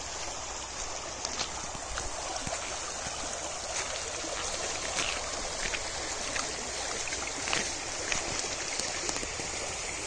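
Shallow muddy water running steadily along an irrigation ditch, an even rushing wash with a few faint scattered ticks.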